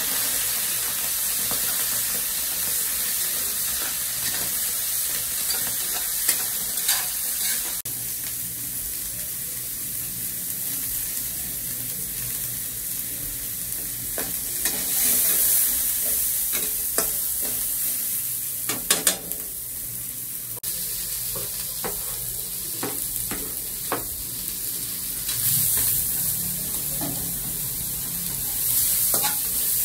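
Food sizzling as it is stir-fried in a metal wok, a steady hiss broken by the clacks and scrapes of a metal spatula against the pan.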